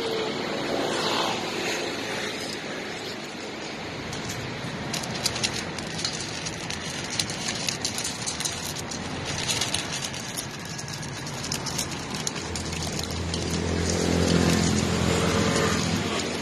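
Two young dogs eating from a steel bowl: small clinks and ticks of muzzles, teeth and collar tags against the metal through the middle, over steady street traffic. Near the end a motor vehicle's engine passes close by and is the loudest sound, a low rumble that fades out just before the end.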